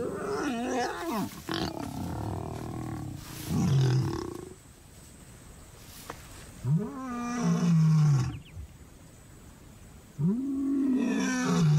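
Male lion roaring: three loud, deep calls a few seconds apart, each rising and then falling in pitch, the last two long, a territorial roar proclaiming his pride. In the first second, a wavering snarl from the mating pair.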